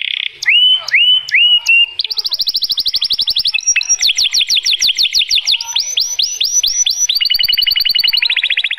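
White male canary singing its breeding song, a continuous run of changing phrases: a few slurred upward notes, then fast rattling trills and rows of quick falling whistles, about five a second, with no pause.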